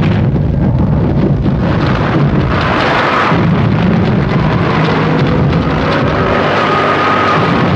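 Battle sound effects: a continuous, loud rumble of shell explosions with no break.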